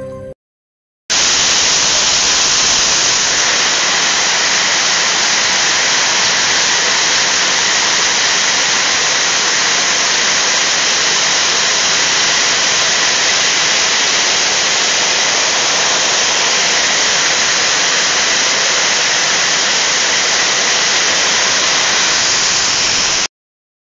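Heavy rain pouring down and pelting a corrugated sheet-metal roof: a loud, steady hiss that starts suddenly about a second in and cuts off near the end.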